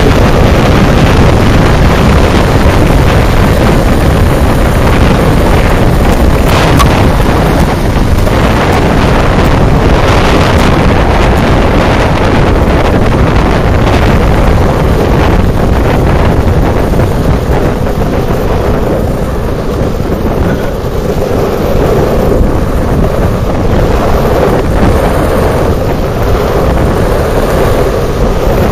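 Steady wind buffeting the microphone at downhill speed, mixed with the rolling rumble of longboard wheels on asphalt.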